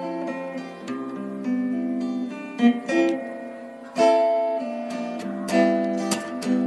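Background music: acoustic guitar picking notes, with a strummed chord about four seconds in.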